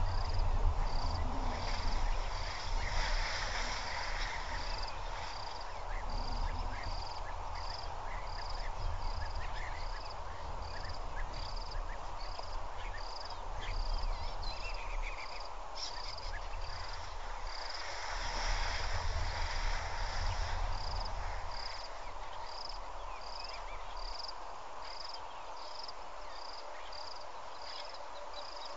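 Bush insects calling: a high chirp repeating about every two-thirds of a second over a steady hiss that swells twice. A low rumble runs underneath and fades about three quarters of the way through.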